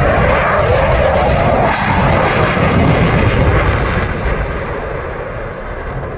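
A fixed-wing airplane flying past, its engine noise coming in suddenly and easing off after about four seconds.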